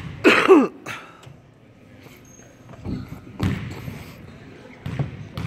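A basketball bouncing a few times on a hardwood gym floor, the free-throw shooter dribbling at the line, in an echoing gym. A brief loud shout with falling pitch comes just after the start.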